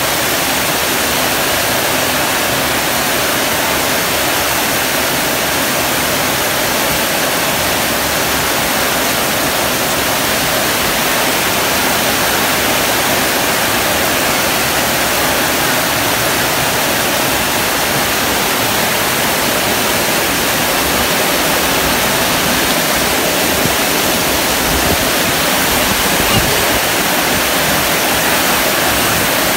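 Heavy rain falling on corrugated metal roofs: a dense, steady hiss of drops that holds at the same strength throughout.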